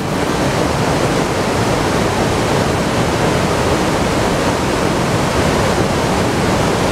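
Waterfall on a river, water pouring over rock ledges in a loud, steady rush.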